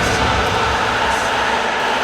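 Syracuse Crunch hockey goal horn blowing a long, steady chord, a loud air horn in the arena over a dense din.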